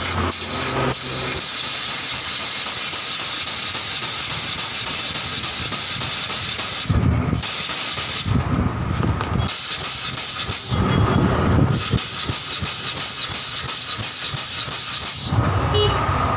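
Air-over-hydraulic pump driving a bottle jack: a steady loud compressed-air hiss with a fast regular pulsing. A few times the hiss thins and a lower rumble comes through.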